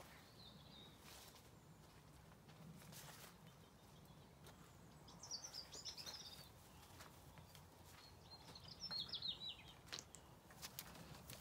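Faint outdoor quiet with a small songbird twittering in two short bursts of quick high notes, about five and nine seconds in, and a few faint clicks and rustles.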